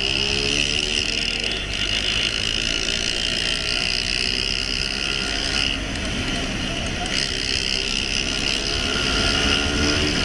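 Motorcycle engine running at speed on a pursuit, its pitch rising and falling with the throttle, under a steady high hiss.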